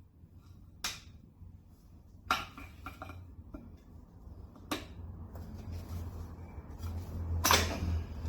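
Scattered metal clinks and knocks of tools and parts being worked on a stuck pool pump assembly, about six in all with the loudest near the end, over a low rumble that grows louder toward the end.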